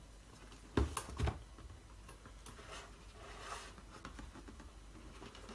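Cardboard packaging box being handled and opened: three light knocks about a second in, then soft rustling and sliding of cardboard.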